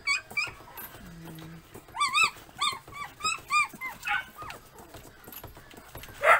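Newborn puppies crying: short, high-pitched whimpers, each rising and then falling in pitch, a few at the start and a quick run of about six from two seconds in. A louder, sharp sound comes right at the end.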